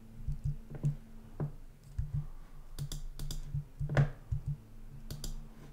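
Computer keyboard being typed on in short irregular clicks and taps, over a faint steady low hum.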